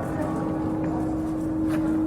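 Church bell's lingering hum after a stroke: one steady low tone holds on while the higher partials have died away, over a haze of town-square background noise.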